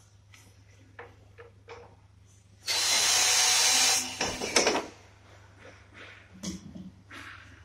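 Cordless drill driver running steadily for about a second and a half, driving a screw into a wall-mounted split air conditioner's indoor unit. A few small clicks come before it and some clattering knocks of handling follow.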